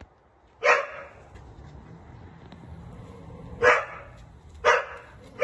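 A dog barking: one bark about a second in, then three more in quicker succession near the end.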